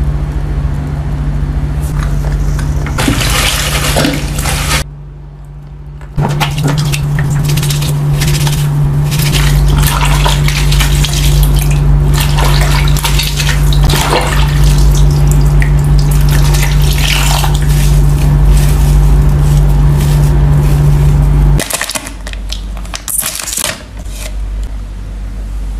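Water sloshing and splashing as clothes are hand-washed and rubbed in a plastic basin of soapy water, over a steady low hum. It drops away and gets quieter a few seconds before the end.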